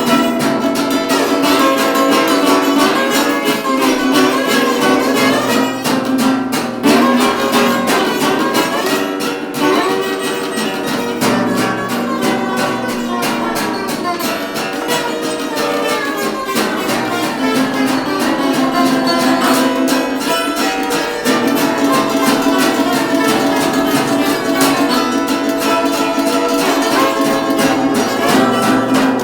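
Acoustic blues band playing: strummed acoustic guitar and ukulele in a steady rhythm, with a lead melody line weaving above them.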